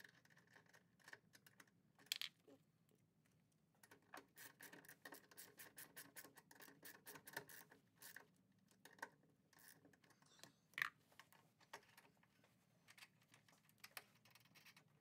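Faint clicks and scrapes of hand tools working on a battery cable terminal as it is fastened to the battery post, with a run of rapid clicking a few seconds in and a few single clicks around it.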